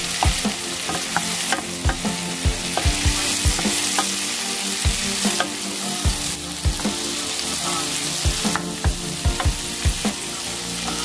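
Vegetables sizzling in butter in a pan, stirred with a utensil that knocks and scrapes against the pan many times at an irregular pace.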